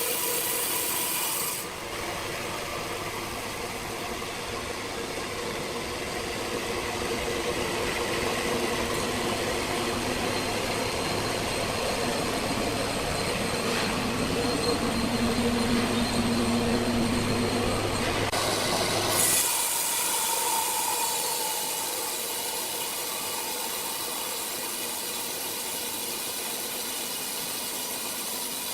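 Sawmill machinery running with a steady mechanical noise. The sound changes abruptly about two seconds in and again about two-thirds of the way through.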